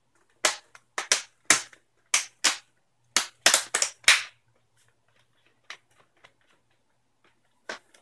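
Plastic display bezel of an Acer Aspire E5-571 laptop being pressed onto the screen lid, its clips snapping into place: a quick series of sharp clicks, about a dozen in the first four seconds, then a few fainter ones.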